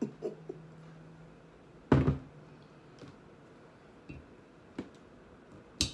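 Mostly quiet while a shot is drunk, broken by one thunk about two seconds in, a couple of faint clicks later, and a brief hissing noise near the end.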